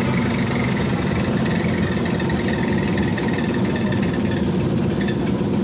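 Cabin noise of a BKM 321 trolleybus: a steady low hum and rumble from the vehicle, with a faint high whine about two seconds in.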